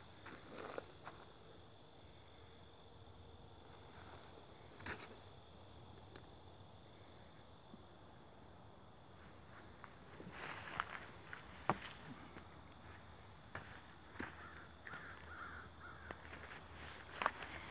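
Steady, high, pulsing insect chirring with occasional footsteps and scuffs on dirt and gravel, the loudest ones about ten to twelve seconds in.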